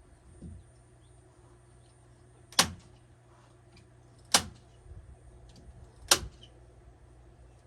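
Three sharp impacts, evenly spaced about a second and three-quarters apart, over a faint steady hum.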